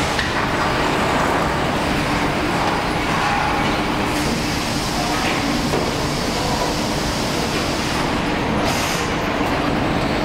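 Steady machinery din from a sugar factory's automated packing line, with a faint low hum running under it.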